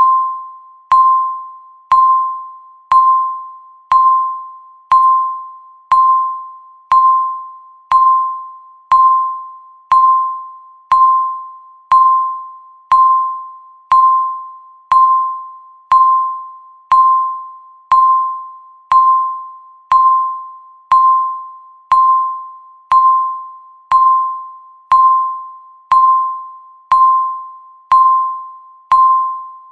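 Countdown timer's electronic tick: a chime-like beep struck once a second at one steady pitch, each ringing out and fading before the next.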